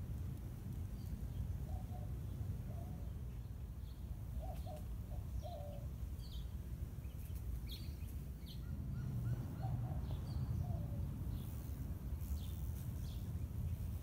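Birds calling outdoors: short low notes that come in pairs every second or so, and brief higher chirps, over a steady low rumble.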